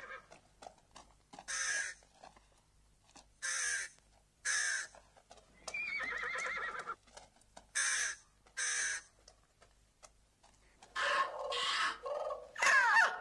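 Crows cawing: about five short, harsh caws spread over the first nine seconds. A louder run of bird calls comes near the end.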